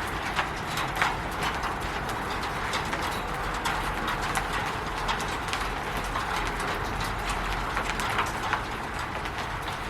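Rain falling on a roof: a steady hiss with many irregular drips and taps landing on it.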